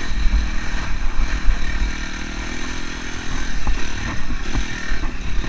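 Dirt bike engine running under throttle through sand, with heavy low rumble on the microphone; the engine eases off for about a second midway, then picks back up, with a few knocks and clatter from the bike over the ruts.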